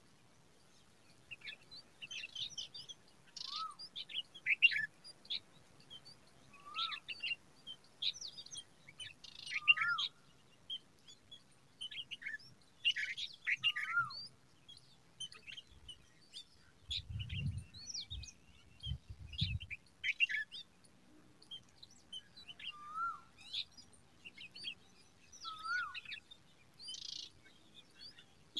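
White-eared bulbul nestlings begging with dense, short, high chirps. A lower, hooked call repeats every few seconds. A few dull low thumps come just past the middle.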